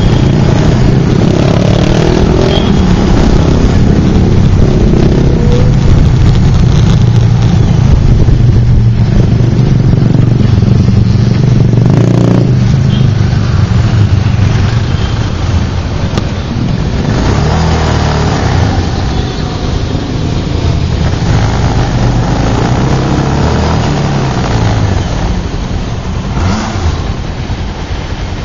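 Motorcycle engine running on the move, with the rush of road noise. It gets somewhat quieter about halfway through as the bike slows and turns off the road.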